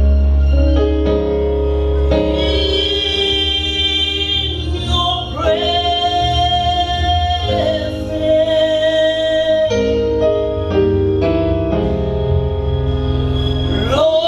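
Gospel worship song: singers holding long, slow notes over a steady deep bass accompaniment.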